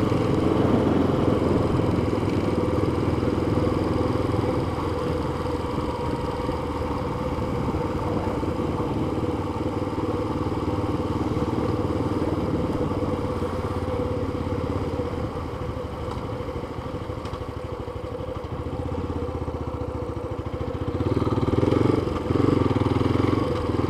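Yamaha FZ25 motorcycle's single-cylinder engine running steadily as the bike rides along. It gets quieter past the middle, then louder again near the end.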